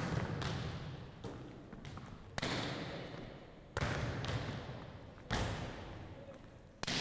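Volleyballs being spiked and smacking onto a hardwood gym floor: a sharp hit about every second and a half, each ringing on in the gym's echo.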